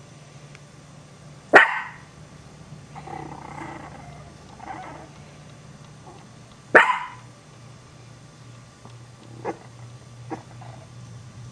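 Chihuahua puppies barking: two loud, sharp barks, one about a second and a half in and one near the middle, with softer growling between them and a few short, faint yips near the end.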